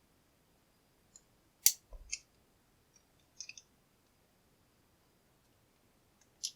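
A few sharp metal clicks from a tool working at the retaining clip on a Chubb padlock's cylinder: a cluster in the first three and a half seconds, one louder than the rest, then a long quiet gap and one more near the end. The clip is holding fast.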